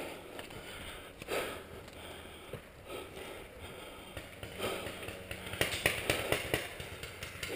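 Paintball fire: a quick string of sharp pops, about six a second, two thirds of the way in.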